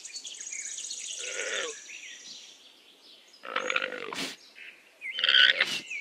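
Three short calls from South American camelids, the first about a second in and the last near the end.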